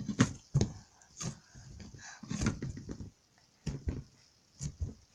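Butter slime being squished and stretched by hand, giving irregular squelches with small sharp pops and clicks.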